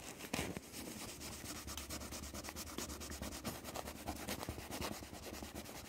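Quick, repeated rubbing strokes on a printed circuit board as flux residue is scrubbed off the freshly tinned trace.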